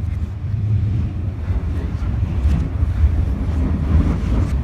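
London Underground train in motion: a steady, loud low rumble.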